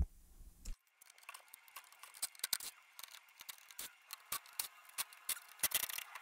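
Irregular light clicks and small rattles, several a second and busier near the end, from hands working the plastic cabinet of a Bose Acoustimass 6 Series III subwoofer as it is opened up.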